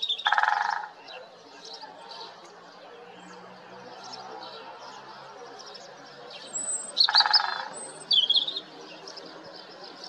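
Male great spotted woodpecker drumming on a tree trunk: two short, very rapid rolls, one at the start and one about seven seconds in. Small birds chirp throughout.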